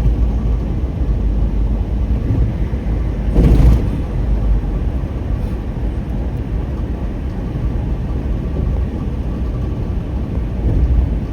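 Steady rumble of a car's engine and tyres on the road, heard from inside the moving car. A short, louder rush comes about three and a half seconds in.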